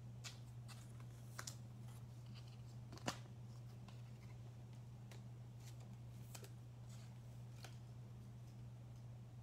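Basketball trading cards being handled on a table: faint scattered clicks and light slides of card stock, with one sharper click about three seconds in, over a steady low hum.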